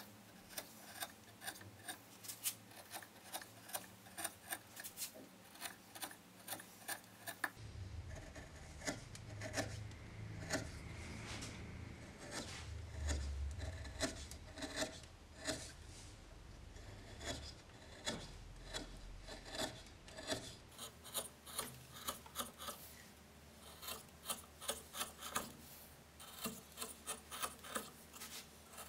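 Hand carving gouge cutting spiral grooves into a wooden blank held in a locked lathe: short scraping cuts, about two a second.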